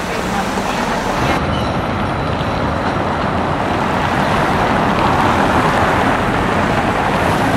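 Street traffic noise: a steady rushing that grows slowly louder.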